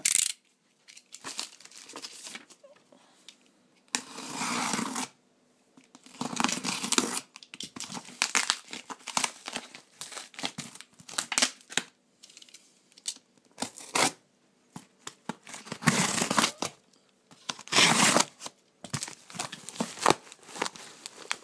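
Packing tape being ripped off a cardboard box: several long tearing pulls of about a second each, with many short crackling rips in between.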